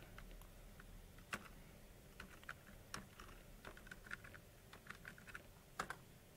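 Faint keystrokes on a computer keyboard: a short terminal command typed at an uneven pace, with one firmer key press near the end.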